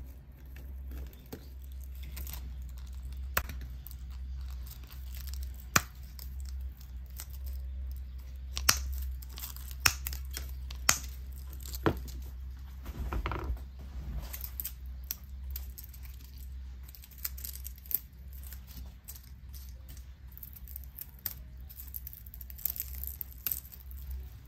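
Rustling and crackling of Japanese cedar sprigs and a dry twig wreath base being handled. Several sharp clicks or snips stand out, most in the first half, over a steady low hum.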